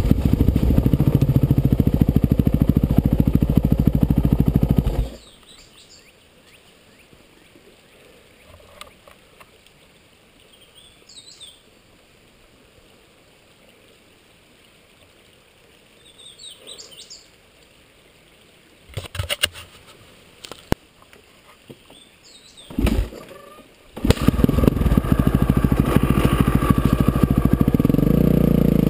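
A Kawasaki KX450F dirt bike's four-stroke single-cylinder engine runs for about five seconds, then stops abruptly. In the quiet that follows, birds chirp a few times and there are a few sharp knocks near the end of the quiet stretch. The engine runs again for the last five seconds.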